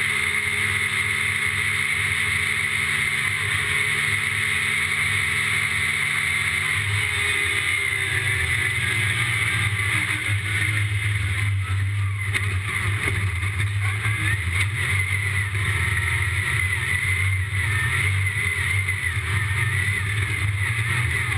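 Yamaha YXZ1000R side-by-side's three-cylinder engine running, a steady drone whose note shifts about seven seconds in.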